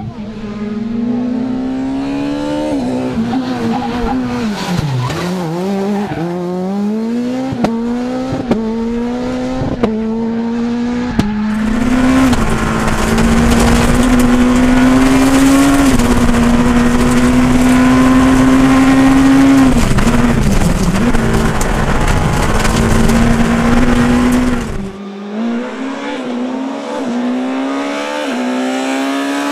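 Škoda Fabia S2000 rally car's two-litre four-cylinder engine at full stage pace, its revs climbing and dropping again and again with quick gear changes, with a few sharp cracks in the first part. Through the middle it is heard from inside the car, louder, with a deep rumble under the engine note.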